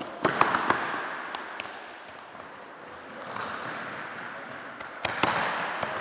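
Players running and kicking a ball on a wooden sports-hall floor: a cluster of sharp knocks about a quarter-second in and another about five seconds in, each with a fading echo from the hall.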